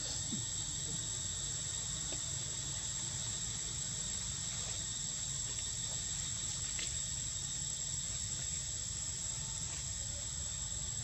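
Insect chorus droning steadily at a high pitch over a low rumble, with a few faint ticks.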